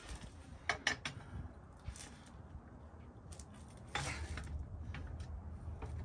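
Lug-nut wrench and socket clicking and clanking against the lug nuts of a Mercedes Sprinter van's front wheel: a few sharp metal clicks in the first two seconds, then a softer scraping stretch from about four seconds in.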